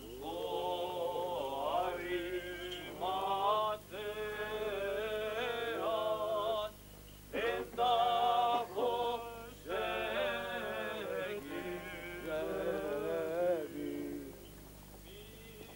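Greek Orthodox Good Friday chant: male voices singing a slow, melismatic hymn in long phrases with short pauses between them.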